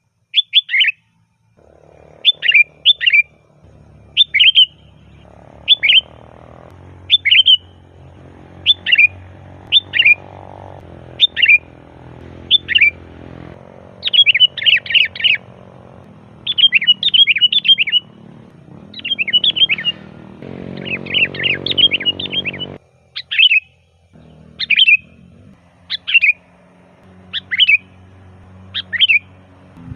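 Sooty-headed bulbul (kutilang) singing loudly, with short chirpy phrases about once a second and now and then a quick run of several notes.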